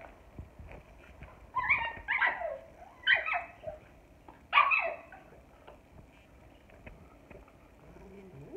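Small pinscher-type dogs squabbling over a bone: about four short, high whining yelps between about one and a half and five seconds in, then only faint scuffling.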